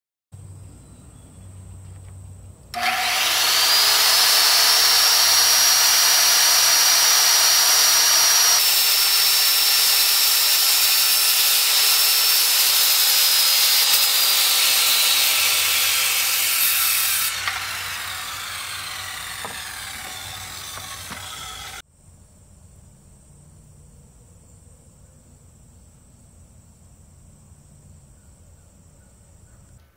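Circular saw spinning up to a steady high whine and cutting through wood. The whine then falls as the blade slows, and the cutting noise fades out about two-thirds of the way through.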